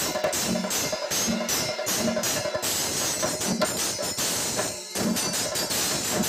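Kerala temple ensemble playing: small brass hand cymbals (ilathalam) clash in a quick, even rhythm while brass horns sound short repeated notes on the beat. About two and a half seconds in the playing turns denser and busier, with a brief dip just before five seconds.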